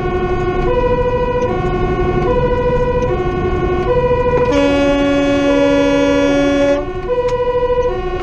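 Fire engine's two-tone siren wailing high-low, switching pitch about every 0.7 s, heard from inside the cab over the truck's engine and road rumble. About four and a half seconds in, a long, steady horn blast of about two seconds sounds over the siren.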